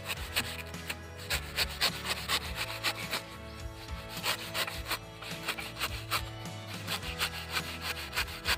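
Knife blade sawing back and forth through the husk of a young coconut: repeated rasping strokes, about two or three a second.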